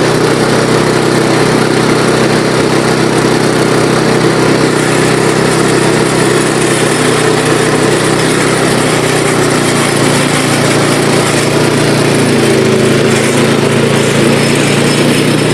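Briggs & Stratton 12.5 hp I/C single-cylinder lawn tractor engine running steadily at a constant speed.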